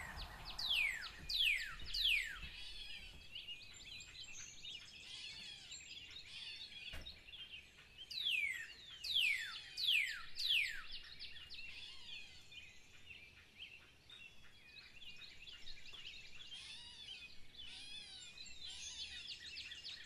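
Songbird chorus: dense high chirping and twittering, broken by loud, steeply falling whistles that come in quick runs of three or four about a second in, around eight to eleven seconds in, and again near the end.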